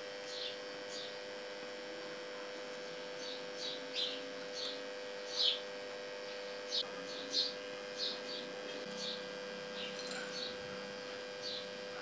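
A modified microwave-oven transformer humming steadily under load as it drives a homemade copper-wire soldering tip. Scattered short crackles come from the solder joint as the flux sizzles.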